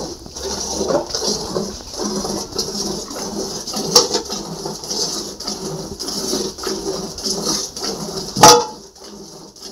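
Cow being milked by hand, milk squirting into a metal pot in a steady rhythm of about two squirts a second. A sharp knock about eight and a half seconds in is the loudest sound.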